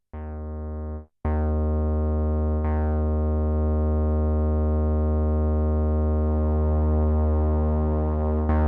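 Akai Timbre Wolf analog synthesizer playing a fat low bass tone: a short note, then a long held note from about a second in whose bright attack quickly fades, brightening again shortly after. Later on a slow swirl moves through the upper tones.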